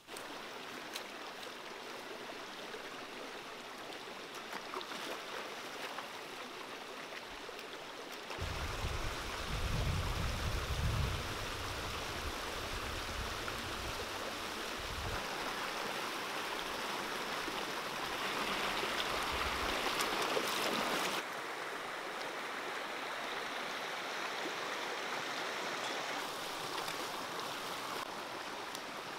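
Shallow stream rushing over rocks: a steady wash of running water, with a low rumble for several seconds in the middle.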